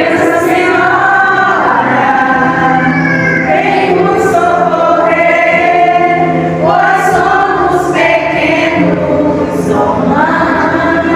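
A choir singing a Catholic Marian hymn in Portuguese over a steady instrumental backing, in phrases a few seconds long.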